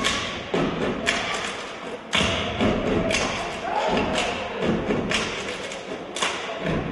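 Step team stepping on a wooden stage: sharp stomps and claps hitting together, a strong one about once a second, with voices calling out.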